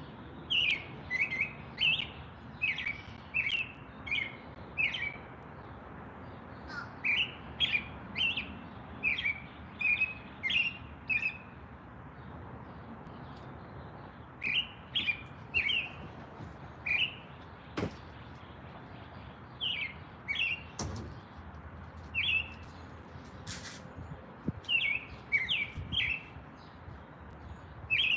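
Small birds chirping in quick runs of short, repeated chirps, broken by pauses of a second or two, with a couple of sharp clicks in the second half.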